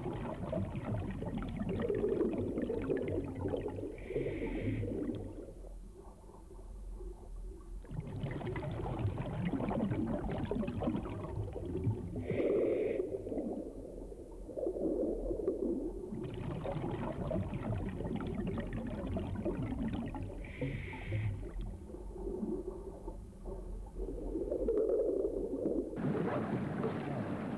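Scuba diver breathing through a regulator underwater: three short hissing inhales about eight seconds apart, each followed by a long bubbling exhale. Near the end this gives way to steady wind and sea noise at the surface.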